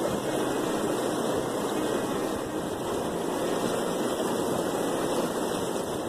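Fast mountain river rushing over rocks in whitewater rapids: a steady, full rush of water.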